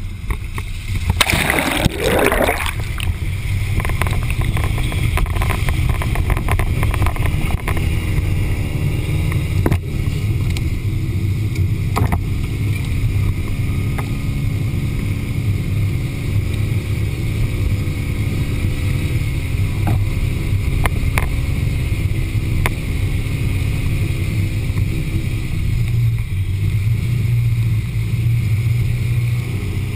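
Off-road 4x4's engine running steadily as the vehicle drives up a wooded dirt trail, its pitch wavering slightly with the throttle. A brief rushing splash of water about a second or two in as it leaves the creek.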